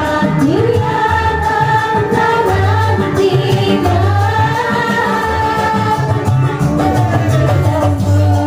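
Women singing a melody into microphones over amplified band music with a heavy, pulsing bass line.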